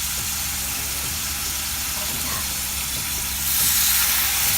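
Ribeye steak sizzling in a pan of butter and water, a steady hiss that grows louder about three and a half seconds in, over a low steady hum.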